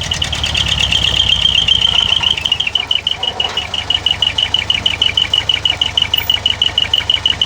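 Mitsubishi Canter's 4D33 4.2-litre four-cylinder diesel idling through its dual muffler, under a loud high-pitched tone that turns into rapid beeping, about five beeps a second, from about two and a half seconds in.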